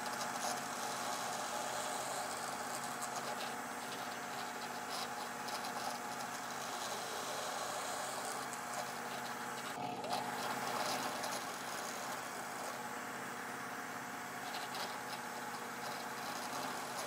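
Drill press motor running steadily while its bit bores holes in a small wooden part, with a brief break about ten seconds in.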